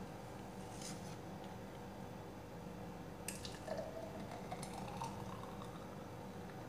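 Thick blended apple, banana and milk juice pouring from a blender jar into a tall glass, faint. From about halfway in there is a rising pitch as the glass fills, with a few light clicks.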